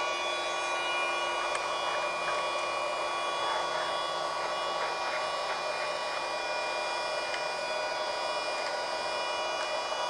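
Mini USB vacuum cleaner's small motor running steadily: a whine made of several fixed tones over the hiss of the air being drawn through it.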